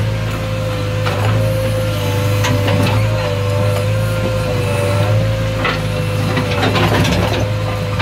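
JCB 3DX backhoe loader heard from inside the cab: the diesel engine runs steadily under load with a steady whine over it as the backhoe digs. Scattered knocks and rattles come through as the arm is worked, with a cluster of them about seven seconds in.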